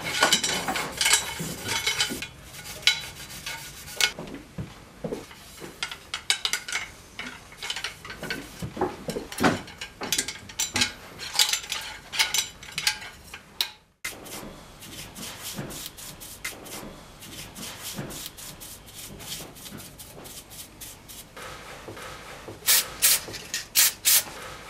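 Cleaning rod worked up and down through shotgun barrels, a bronze brush and then flannel rubbing and scraping inside the bores, with irregular clicks and knocks of the rod. Near the end, several short hisses of an aerosol lubricant spray.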